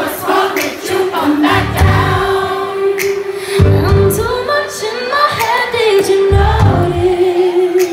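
Female singer performing live into a handheld microphone over layered, choir-like backing vocals, with a long held note underneath and deep bass hits every two to three seconds.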